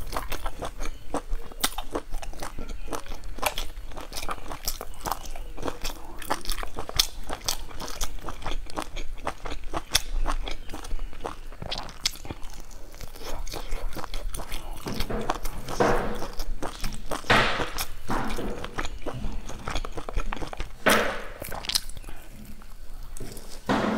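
Close-up chewing and biting of spice-coated sausages on skewers: a steady run of wet mouth clicks and crunches, with a few louder, longer chewing sounds in the second half.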